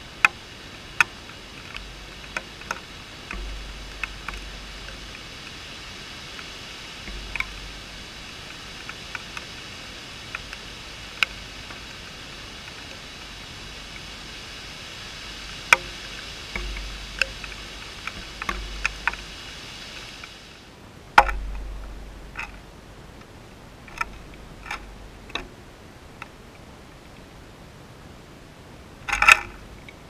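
Light rain falling on a bird bath and the camera: scattered sharp raindrop ticks, a loud cluster near the end, over a steady hiss that drops away about two-thirds of the way through, with occasional low rumbles.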